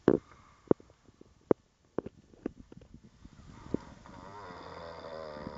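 A man snoring in his sleep: a run of short, sharp clicks and catches in the breath in the first half, then one long, drawn-out snore that swells from about three and a half seconds in.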